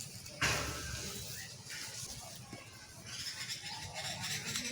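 A trapped monitor lizard giving a sudden loud hiss about half a second in, fading over about a second.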